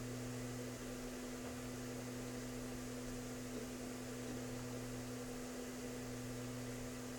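A steady low electrical hum with no other distinct sound.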